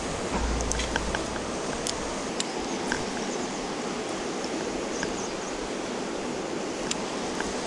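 River water rushing steadily, with a few faint, sharp clicks scattered through it.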